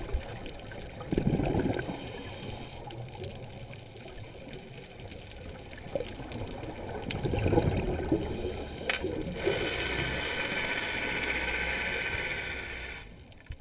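Scuba diver breathing through a regulator, heard underwater: gurgling bursts of exhaled bubbles about a second in and again around seven to eight seconds, then a steadier hiss from about nine and a half seconds that fades out near the end.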